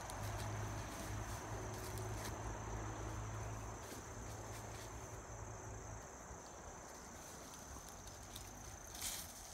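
Insects trilling steadily on one high, even tone, under a low rumble that fades about six seconds in. Near the end come a few sharp rustles and clicks, like steps pushing through brush.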